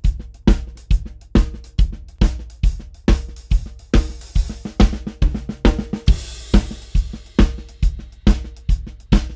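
Recorded drum kit playing a steady beat, with kick and snare hits about twice a second, hi-hat spill in the snare mic and a cymbal crash about six seconds in. The kick-in and snare-top tracks are heard through a Pultec-style passive tube EQ, with low-end weight being boosted on the snare.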